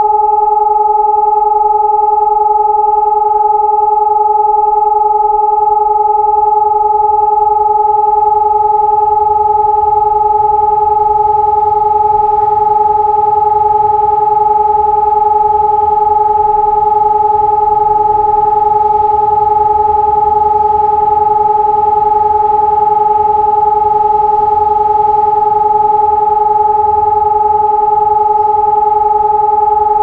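SiRcom eRotor 750 electronic warning siren sounding a steady continuous tone that never rises or falls in pitch, as a siren test signal, over a faint low rumble.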